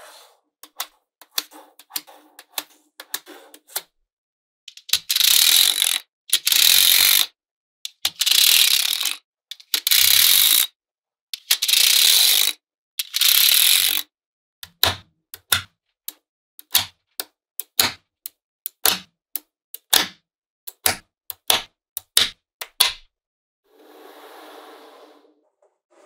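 Small magnetic balls clicking into place, then five loud crunching, rattling runs about a second long each as whole strips of balls snap down onto the slab, then a row of single sharp clicks about two a second. A softer, duller rattle comes near the end.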